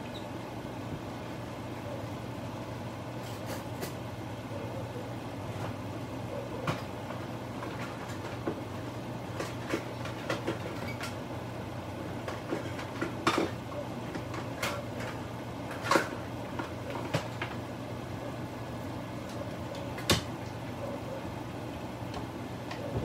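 Beef and onions simmering in broth in a pan, with irregular small pops and a few louder ones over a steady low hum.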